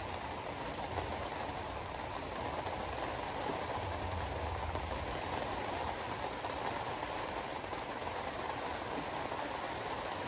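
Steady road and tyre noise of a car driving on a rain-wet road, heard from inside the cabin, with a low rumble underneath.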